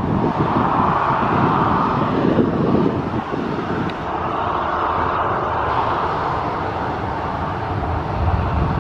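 Ryanair Boeing 737 twin-jet engines at takeoff thrust: a loud, steady jet roar with a rough low rumble as the airliner lifts off and climbs away, swelling and easing every couple of seconds.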